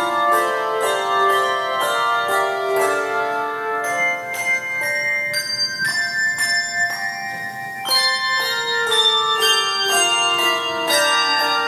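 Tuned bells playing a melody, notes struck in quick succession and left to ring over one another.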